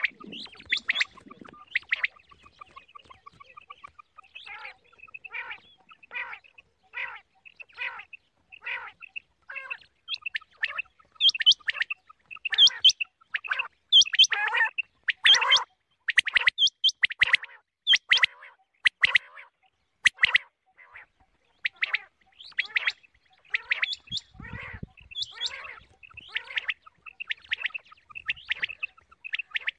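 Quail (batair) calling over and over in short, sharp notes, about one and a half a second, louder through the middle stretch: a lure call of the kind played to draw quail to trappers' nets. A brief low rumble a little after two-thirds through.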